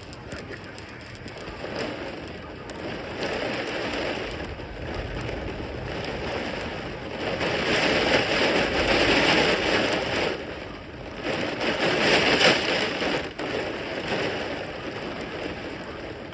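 Heavy rain pouring, growing louder in two swells, about eight and about twelve seconds in.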